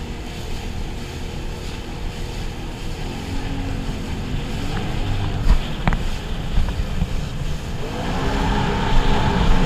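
Sea-Doo personal watercraft's engine running under way, with water rush and wind on the microphone. Its pitch rises about three seconds in, and it climbs again and grows louder near the end. There are a couple of sharp knocks around the middle.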